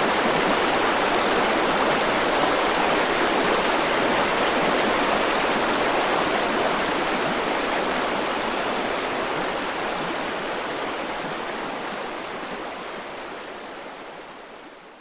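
River water rushing over rocks in small rapids, a steady even rush that fades out gradually over the second half.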